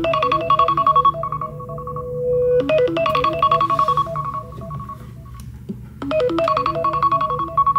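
iPhone alarm ringing: a short melody of quick, bright notes ending in a held tone, played over and over about every three and a half seconds, with a low buzz underneath.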